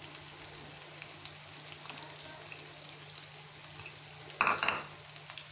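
Minced meat (keema) frying in oil in a pan on a gas flame: a steady sizzle with small scattered crackles. A short clatter about four and a half seconds in.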